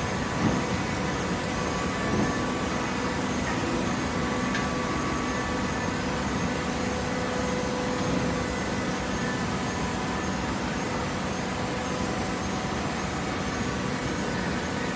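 Horizontal cardboard baler with its infeed conveyor running: a steady mechanical hum with a few light knocks in the first couple of seconds.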